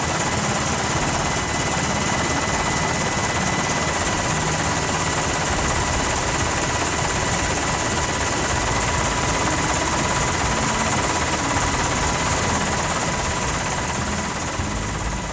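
Steady engine noise, even and unbroken, with a few faint high steady tones over it; it eases slightly near the end.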